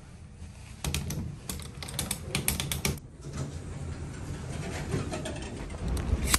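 A quick, irregular run of sharp clicks and taps over a low steady hum, thickest in the first half, with one sharp loud click near the end.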